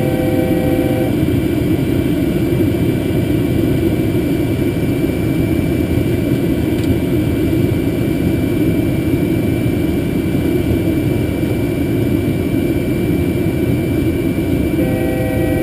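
Steady flight-deck noise of a Boeing 747-200 full-flight simulator: an even rushing rumble of simulated engine and airflow sound with a faint high whine. A brief steady tone of a few notes sounds at the very start and again near the end.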